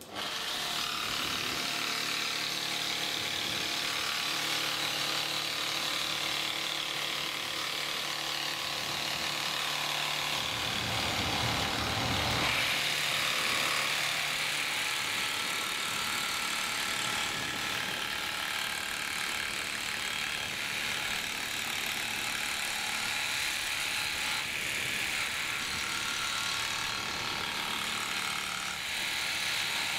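Hand-held jigsaw running steadily as it cuts along a marked line through a wooden floor panel. A deeper rumble joins for a couple of seconds about ten seconds in.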